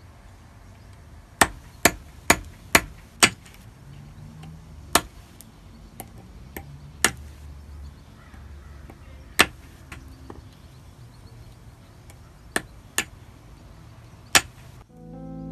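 Mosaic hammer (marteline) striking stone against a hardie set in a wooden block, cutting tesserae: about eleven sharp cracks at uneven intervals, five of them in quick succession a second or so in, then single strokes every few seconds.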